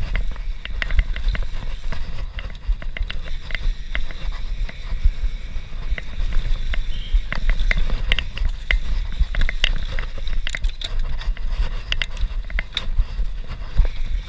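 YT Industries Capra CF enduro mountain bike descending a dirt forest trail at speed: a steady low rumble of wind and ground noise, broken by many quick, irregular clicks and rattles of the bike over the bumpy ground.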